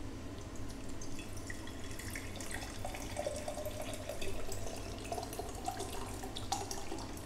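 Coconut water poured in a steady stream from a carton into a glass mason-jar mug, trickling and splashing against the glass. A faint tone rises slowly as the jar fills.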